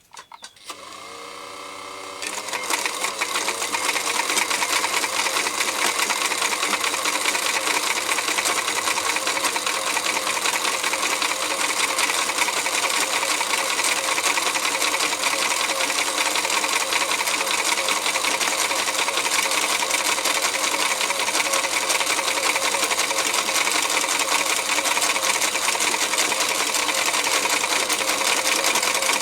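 Jones VX-810 electric sewing machine starting up, its motor rising in pitch over the first two seconds, then running at an even speed. It is sewing a test seam after a tension adjustment. The machine runs a bit lazy, which the owner suspects is worn motor brushes.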